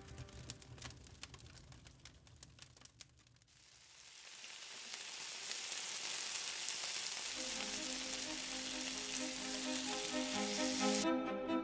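Bacon and an egg sizzling in a frying pan, an even hiss that fades up from near silence about four seconds in. Music with sustained notes comes in over it about halfway through.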